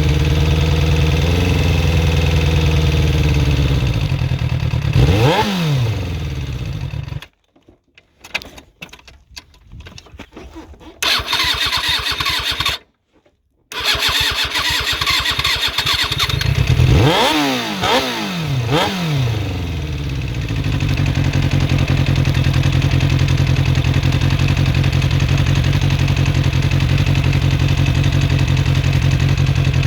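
Suzuki GSX-R400 inline-four motorcycle engine idling, blipped once about five seconds in and twice more in the second half, each rev rising and falling back to idle; the sound cuts out for several seconds in the middle. The engine has a ticking that the owner suspects is from the valve shims or the timing chain.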